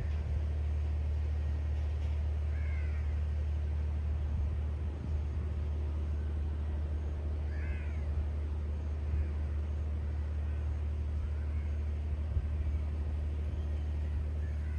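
Steady low rumble of a distant propeller airliner's engines running, with a bird giving short chirping calls twice, about three and eight seconds in.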